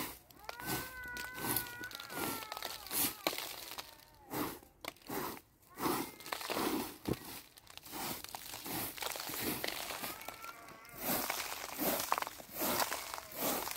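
A hand broom made of a bundle of dried plant stems sweeping a wool carpet: repeated swishing strokes, about one or two a second.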